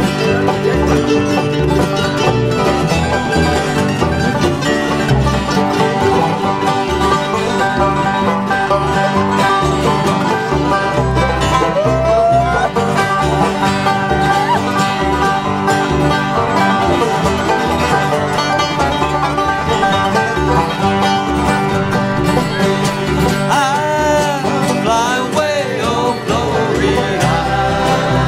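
Acoustic bluegrass band playing an instrumental break: banjo, fiddle, mandolin, guitars and upright bass together. A sliding melody line stands out around halfway and again near the end.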